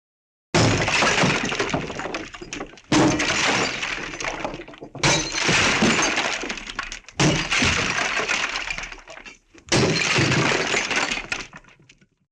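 Five crashes of breaking glass, one after another, about every two to two and a half seconds. Each starts sharply and trails off as fragments scatter.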